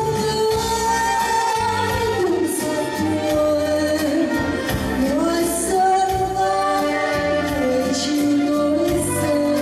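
Live amplified performance of a Vietnamese song: a woman singing a held, gliding melody into a microphone over electronic keyboard accompaniment with steady low bass notes.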